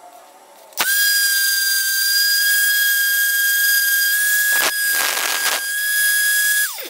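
Electric random orbit sander switched on: a loud, steady high motor whine that starts suddenly, turns rougher and noisier for about a second past the middle, then falls in pitch as it winds down near the end.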